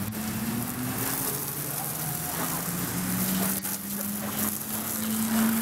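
Garden hose spraying water onto a car's body: a steady hiss, with a low steady hum underneath.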